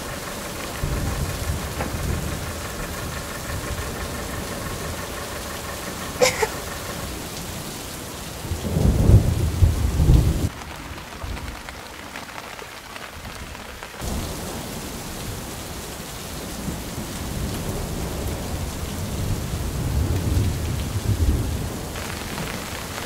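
Steady rain falling and pattering on the surface of a small creek, with deep rolls of thunder rumbling twice: once about nine seconds in and again for several seconds near the end. A short sharp click sounds about six seconds in.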